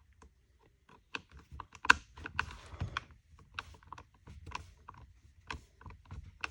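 Quick, irregular clicks and snaps, several a second from about a second in, as the reassembled throttle trigger, trigger lockout and kill switch in an Echo CS-355T chainsaw's top handle are worked by hand to check that they spring back.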